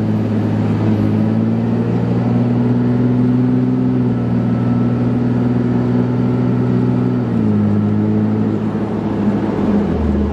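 Cummins turbodiesel pickup accelerating up to highway speed, heard from inside the cab through a 5-inch turbo-back exhaust with a resonated Aero Turbine 5050 XL muffler: a steady, throaty engine drone. Its pitch drops about seven seconds in as the transmission upshifts, then holds steady again.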